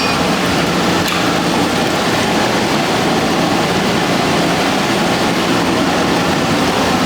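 Steady, loud mechanical noise of boiler room equipment running: an even hum and rush with no breaks.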